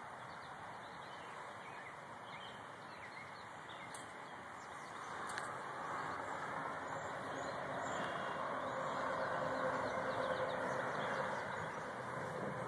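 Small birds chirping now and then over steady outdoor background noise, which grows louder about halfway through.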